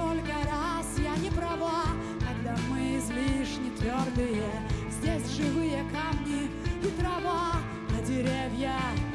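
Background song with a singing voice over sustained instruments and a steady beat.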